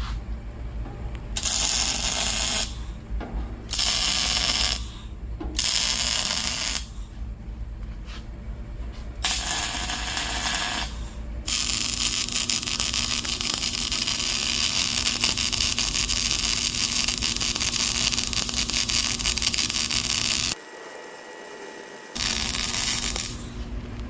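Electric arc welding on the steel of a wood-stove body: several short crackling bursts of about a second each with pauses between, then a long unbroken crackling weld bead of about nine seconds, a brief break, and one more short burst near the end.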